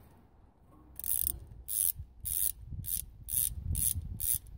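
Hand ratchet wrench with a 9/16 twelve-point socket clicking through quick back-and-forth strokes, about two a second, as a bolt is loosened on a Detroit Diesel 4-53 cylinder head. The strokes start about a second in.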